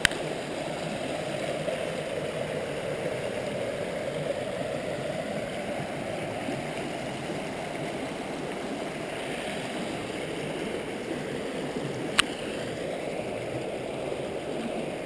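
River rapids: water rushing and gurgling steadily over the shallows. A single sharp click cuts in about twelve seconds in.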